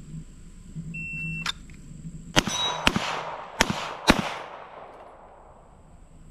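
Shot timer beeping once with a steady high tone, then four gunshots in two quick pairs, each shot about half a second after the one before it and the pairs about a second apart, with a long echo after the last ones.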